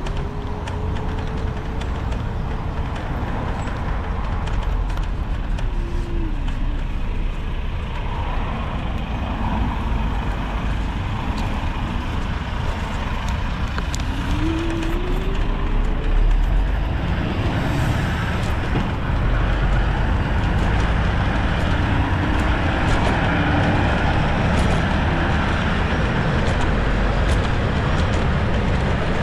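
Riding a NIU KQi3 Pro electric scooter through city traffic: a steady low rumble and road noise, with cars and traffic around and a faint whine that dips and rises in pitch a few times.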